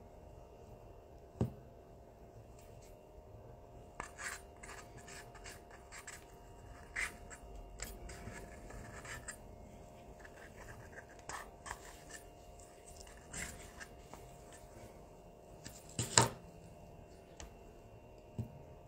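Faint scraping and scattered light clicks as a small plastic mixing cup, stirring tool and silicone mold are handled while UV resin with glow powder is mixed and spread into the mold, over a faint steady hum. One louder knock near the end.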